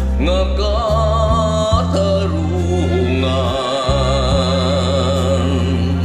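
A man singing a ballad in long held notes with vibrato over a karaoke backing track whose bass notes change every second or so.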